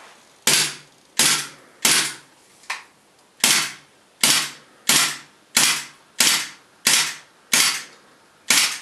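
WE G26C green-gas blowback airsoft pistol fired semi-automatic about a dozen times, roughly one shot every 0.7 s, each a sharp pop with a short hiss of gas, one weaker than the rest. The gun discharges gas but no BBs come out: the fault being shown.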